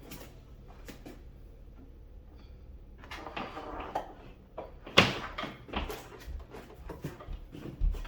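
Hands handling computer parts and cables on a test bench: a quiet stretch, then rustling and clicks, with a sharp knock about five seconds in and several lighter knocks after it.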